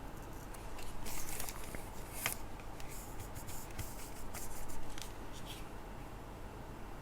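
Faint clicks, taps and scrapes of small tools and metal parts being handled while working on a jumper wire's pin, with a sharp tick a little over two seconds in and a busier patch near five seconds.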